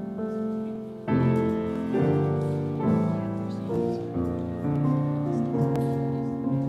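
Piano playing a slow piece, a new chord struck about a second in and fresh notes every second or so after.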